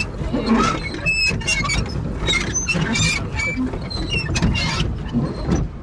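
Pedal boat being pedalled: irregular squeaks and clicks from the pedal mechanism over a steady low rumble.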